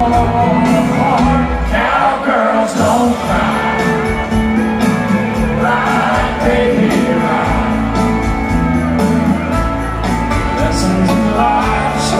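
Live band playing loud amplified music, with a singer over a regular drum beat.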